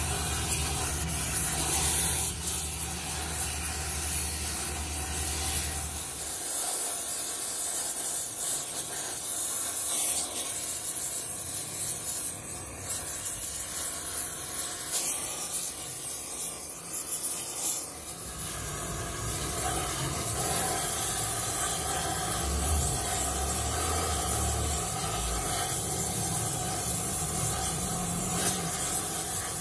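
Gas torch flame hissing steadily as it heats a cast iron tractor transmission housing. A low hum lies under the hiss, dropping out from about six seconds in and coming back at about eighteen seconds.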